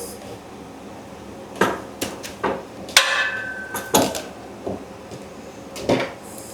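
Scattered sharp clicks and clacks of metal printer parts and hand tools being handled, about seven in all, with one knock around three seconds in followed by a brief metallic ring.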